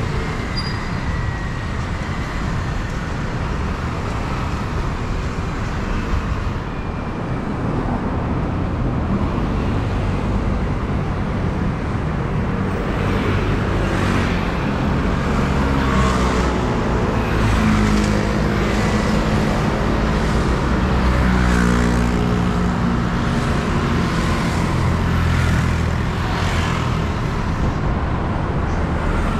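City street traffic: the steady rumble of motor vehicles and their tyres passing close by, with one engine's hum growing louder through the middle stretch and then easing off.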